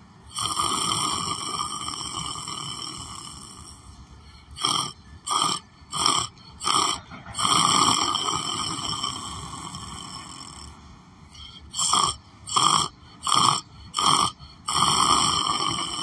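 A man snoring through an open mouth: long drawn-out snores, twice broken by a run of four short, quick snorts.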